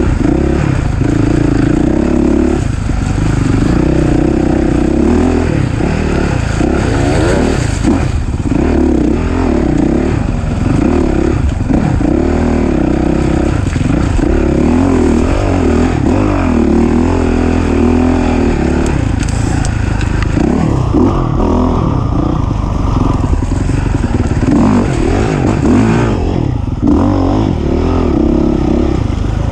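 Off-road racing engine heard up close, revving up and falling back over and over as the throttle is worked through the course.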